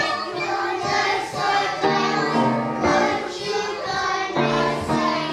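A group of young children singing a song together, with notes held for about a second at a time.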